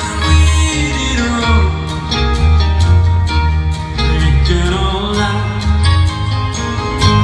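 Live band playing at concert volume: a bass line moving under sustained pitched instruments, with a regular drum beat.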